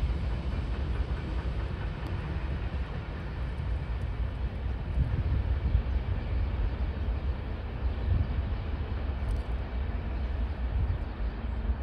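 Freight train boxcars rolling away on the rails at the tail of the train: a steady low rumble of steel wheels on track.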